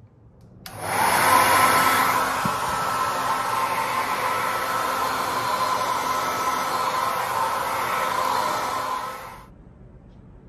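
Hair dryer switched on just under a second in, blowing a steady rush of air, then switched off about a second before the end.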